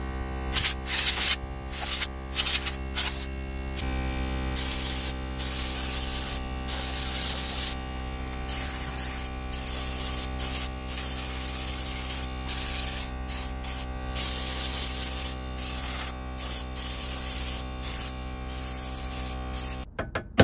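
Small electric air blower running steadily, with repeated short blasts of air blowing dust out of a car's rear drum brake assembly; the motor shuts off just before the end.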